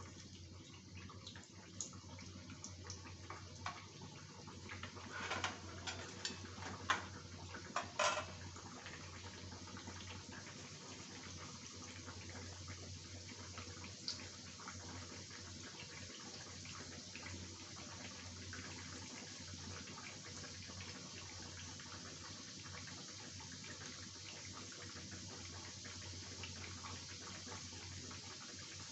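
Sattu-stuffed litti deep-frying in hot oil in a kadhai: a steady sizzle and bubbling. In the first eight seconds or so there are sharper clicks and pops, loudest around six to eight seconds in.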